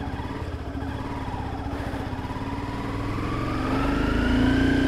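Honda sport motorcycle's engine running as the bike pulls away, at first steady, then rising in pitch and getting louder from about three seconds in as it accelerates.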